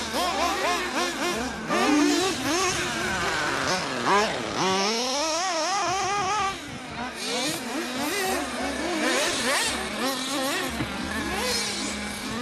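Several 1/8-scale nitro buggies' small .21 glow engines racing on a dirt track, their high-pitched whine overlapping and repeatedly rising and falling as they rev and back off through the corners.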